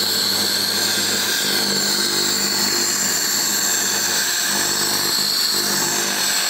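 JASIC WF-22L handheld laser gun in laser-cleaning mode, burning paint off a steel tube: a steady high-pitched whine over a hiss, with a faint low hum underneath.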